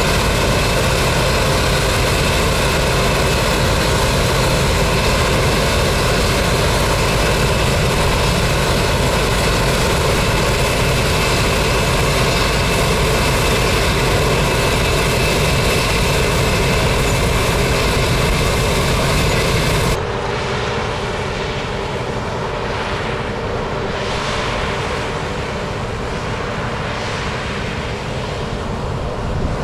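DON-1500B combine harvester running steadily while cutting wheat: a loud, even drone of diesel engine and threshing machinery with a set of steady whining tones. About two-thirds of the way through it cuts abruptly to a quieter, more distant drone of the combine with gusty noise over it.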